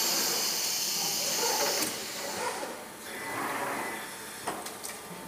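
Automatic die cutting machine with a suction-cup robot arm at work: a loud high air hiss for about the first two seconds cuts off suddenly, then quieter mechanical running with a few light clicks near the end.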